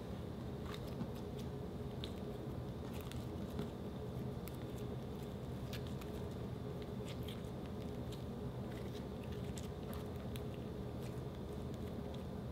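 Glossy slime being pressed and stretched by hand, giving off scattered small sticky clicks and pops over a faint steady hum.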